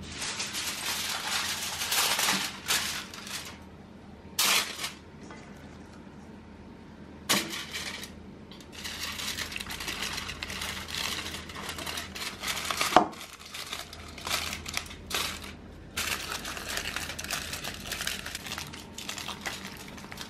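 Aluminium foil crinkling and rustling in uneven bursts as hands fold it up around a slab of pork belly, with short pauses and one sharper crackle about thirteen seconds in.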